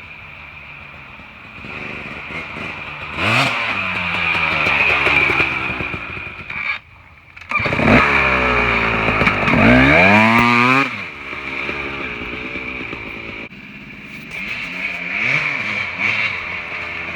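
Dirt bike engine revving in a few blips, the pitch climbing and falling each time, the biggest rev about eight seconds in.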